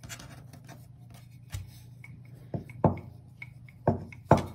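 Wooden rolling pin rolling out a ball of dumpling dough on a wooden tabletop: soft rubbing, with about five sharp wooden knocks as the pin strikes the table, the loudest near the end. A low steady hum runs underneath.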